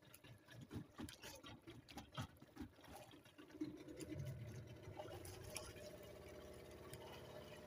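Faint irregular ticks and taps of nylon fishing line being handled and untangled in a wooden boat. About three and a half seconds in, a faint steady hum starts and keeps on.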